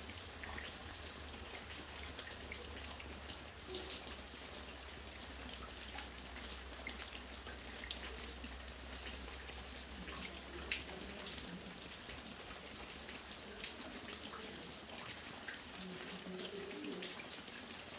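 Fine rain falling steadily, with scattered louder drops landing singly, water dripping from a roof.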